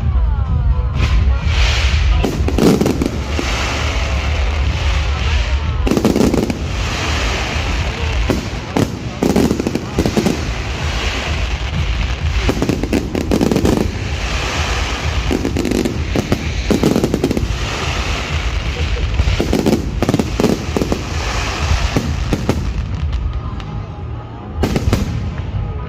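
Fireworks display: shells bursting in rapid, overlapping volleys throughout, with music beneath.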